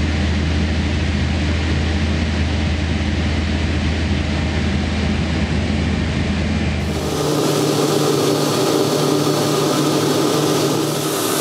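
Allison 250 turboprop engine and propeller droning steadily in cruise flight, heard inside the cockpit. About seven seconds in, the deep low drone gives way to steadier higher tones and more hiss.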